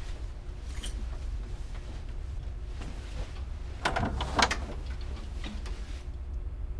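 Fabric rustling with a few sharp clicks and knocks about four seconds in as a coat is pulled on beside a door, over a steady low hum.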